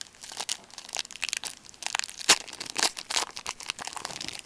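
Crinkling and tearing of a foil trading-card pack wrapper as a pack of hockey cards is ripped open, in a dense run of sharp crackles that is loudest about two seconds in.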